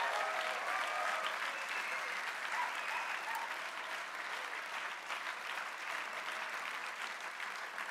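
A large conference audience applauding, the clapping slowly dying down.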